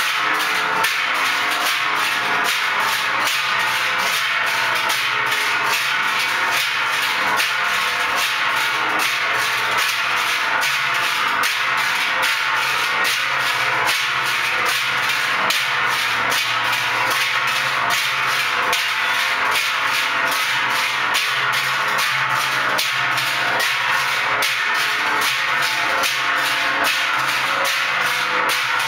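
Music with a fast, steady percussive beat.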